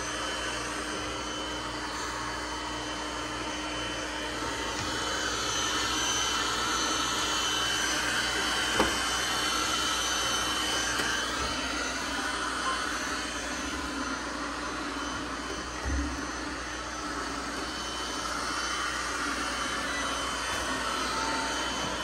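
Several robot vacuums running together on carpeted stairs, a steady whir of motors and suction. A sharp knock sounds once about nine seconds in and a low thump about sixteen seconds in.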